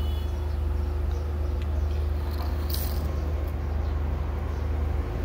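Steady low mechanical hum, with a brief rustle about three seconds in.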